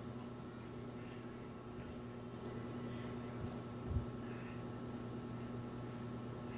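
Two computer mouse clicks about a second apart over a steady low electrical hum, with a soft low thump about four seconds in.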